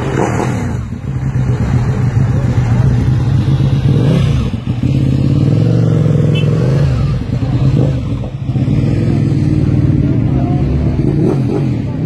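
Nissan GT-R's twin-turbo V6 through an Armytrix aftermarket exhaust, revved and held at raised engine speed, dropping back briefly three times.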